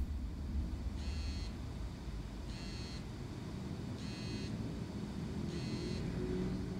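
Electronic warning beeper sounding a high, even beep about every one and a half seconds, each beep about half a second long, over a low steady rumble.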